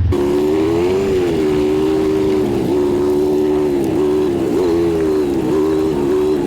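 A motor's steady whining hum, its pitch wavering slightly up and down.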